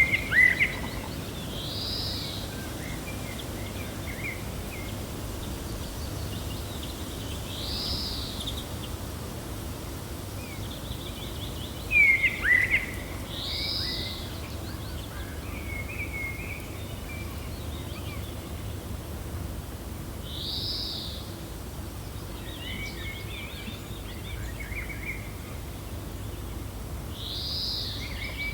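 Songbirds calling over a steady low wind: a short arched call repeats about every six seconds, with faint twittering between. Two louder sharp chirps come at the very start and about twelve seconds in.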